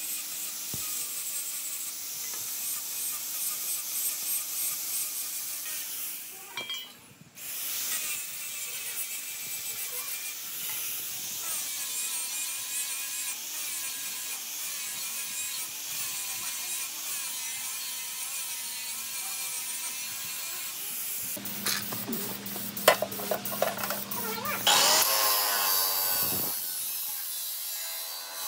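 Tool work on rusty metal: a steady rasping scrape with a short break about seven seconds in. Near the end comes a run of sharp clicks over a low hum, then a louder, pitched sound.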